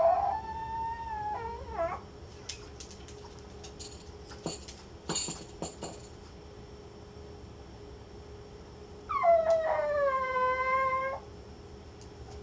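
Pomeranian howling while left home alone: two long howls of about two seconds each, one right at the start that wavers at its end and one near the end that slides down a little and then holds. A few faint clicks and taps come in between.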